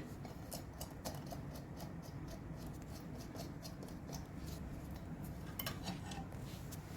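Faint, irregular small clicks and light clinks of hands handling a sewing machine and its packing while it is being unpacked.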